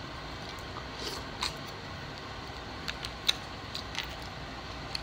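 Sharp, scattered clicks and cracks of crab and mussel shells being picked apart by hand with long fingernails, about half a dozen, the loudest a little past the middle, over a steady background hiss.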